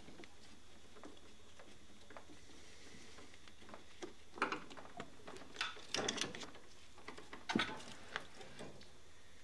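Scattered light clicks and rustles of a gloved hand working a radiator hose and its clip off the pipe, clustered from about four to eight seconds in.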